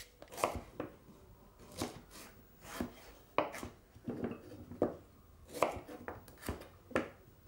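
Kitchen knife chopping parsnips into batons on a chopping board: about ten sharp, unevenly spaced knocks as the blade goes through and strikes the board.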